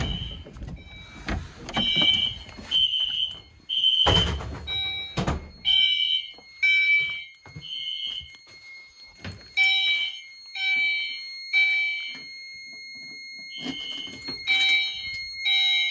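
Fire alarm notification appliances sounding a temporal code-3 pattern: three short high blasts, a pause, then three more, repeating. The sources are a System Sensor SpectrAlert horn set for code 3 and a Gentex Commander 2 on chime, with a steady high tone joining about five seconds in. A couple of thumps come around four and five seconds in.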